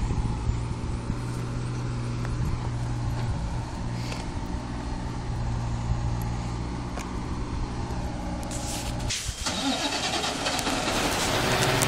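Heavy diesel engine of a flatbed semi truck idling steadily. About nine seconds in, the sound cuts abruptly to a closer, louder engine running, noisier and with a steady higher tone in it.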